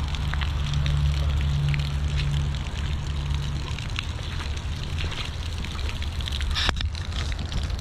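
Rain dripping and water trickling, with scattered drops ticking over a steady low rumble. A single sharp click sounds near the end.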